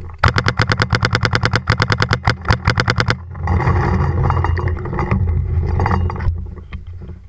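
A paintball marker firing a rapid string of shots, about a dozen a second, for about three seconds. A rushing noise follows for about three seconds.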